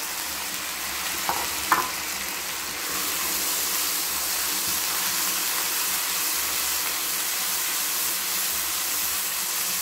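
Boneless chicken pieces sizzling in hot oil in a nonstick wok as they are stir-fried with a silicone spatula. There are two light taps between one and two seconds in, and the sizzle gets a little louder about three seconds in as the stirring gets going.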